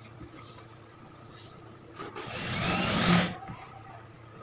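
Industrial single-needle sewing machine stitching a seam in one short run of about a second, starting about two seconds in and getting louder before stopping abruptly, over a steady low hum.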